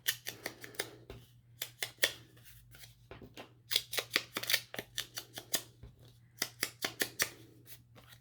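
Scissors snipping through paper in several runs of quick cuts.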